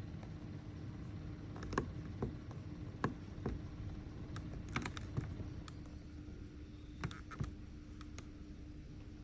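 Bonaire evaporative air cooler clicking: sharp, irregularly spaced clicks, a dozen or so, over a steady low hum.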